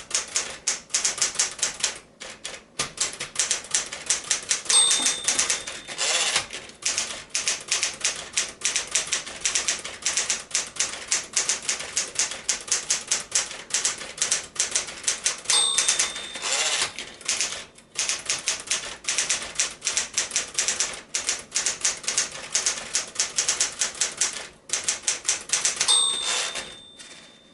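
1964 Smith-Corona Galaxie II manual typewriter typing at a brisk pace, its typebars clacking rapidly. Three times the margin bell rings, each followed by about a second of denser clattering as the carriage is returned, and the typing stops at the very end.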